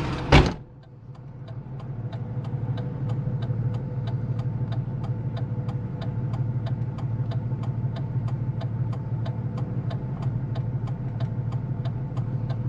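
Jeep Cherokee XJ idling, heard from inside the cabin with the driver door open, with a steady hum and a rapid, even ticking about three times a second. A short thump comes right at the start.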